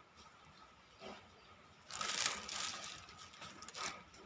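Handling noise: a scraping rustle lasting about a second, starting about two seconds in, followed by a few light clicks and rattles.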